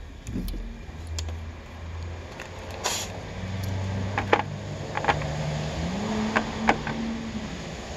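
Cordless drill motor running, its hum stepping up in pitch twice as it speeds up, then stopping near the end. Several sharp clicks sound over it.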